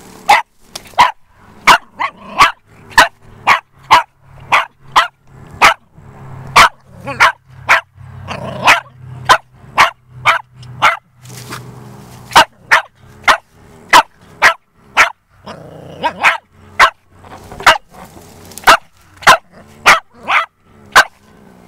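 Small dog barking sharply over and over, about one and a half barks a second, holding a cornered opossum at bay.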